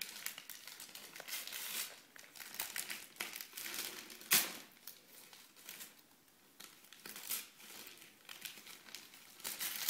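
Gift wrapping paper crinkling and tearing in short, irregular rustles as a child unwraps a present by hand, with one louder rustle about four seconds in.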